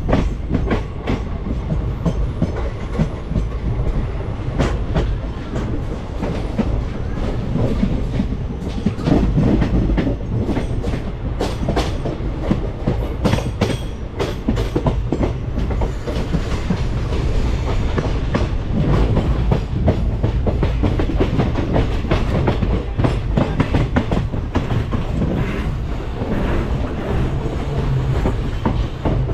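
West Coast Express passenger train running at speed: a steady low rumble with wheels clicking and clattering over the rail joints.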